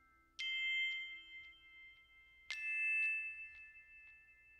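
Background music: soft bell-like chime chords, struck twice about two seconds apart, each ringing on, with lighter single notes between.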